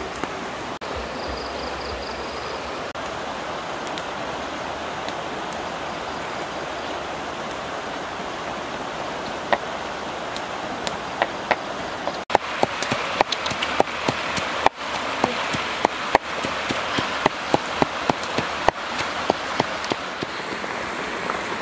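Wood campfire crackling with sharp, irregular pops over a steady hiss; the pops start about nine seconds in and come more often in the second half.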